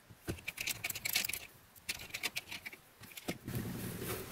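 Light clicks and scrapes of a screwdriver tightening a wire into the screw terminal of a solar charge controller, followed by a single knock a little after three seconds as the screwdriver is set down on a wooden counter.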